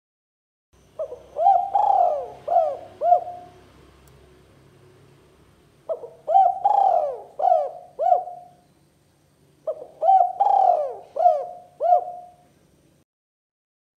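Spotted dove (tekukur) cooing: three phrases of about five notes each, a few seconds apart.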